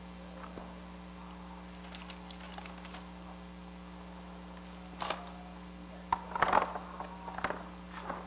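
Steady electrical hum with light clicks, then a few short knocks and rustles of things being handled close to the microphone, loudest about six and a half seconds in.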